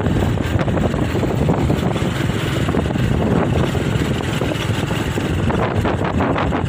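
Loud, steady rush of wind buffeting the microphone over the running noise of a moving vehicle.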